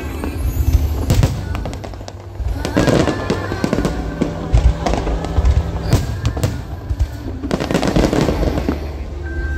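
Aerial fireworks bursting with repeated sharp bangs, and two spells of dense crackling about three and eight seconds in, over music with steady held notes.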